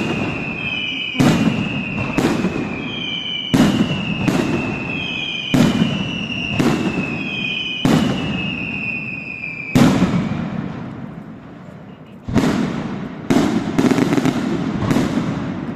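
Aerial fireworks display shells bursting, about one loud bang a second. Through the first half, each bang is followed by a high whistle falling in pitch. A short lull a little past the middle is followed by another run of bangs.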